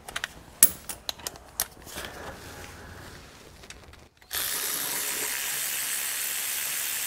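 Socket ratchet clicking in short irregular runs as a bolt under the car is worked. About four seconds in, a loud steady hiss starts suddenly, and it is the loudest sound.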